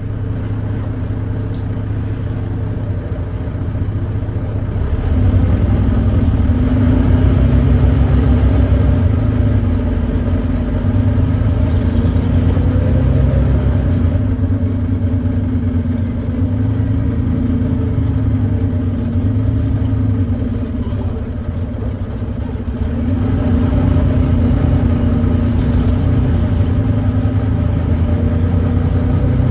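Volvo D9B 9.3-litre diesel engine of a Volvo B9TL double-decker bus, heard on board, running under load. It grows louder about five seconds in, eases off for a few seconds after about twenty seconds, then builds again. The engine has an exhaust leak.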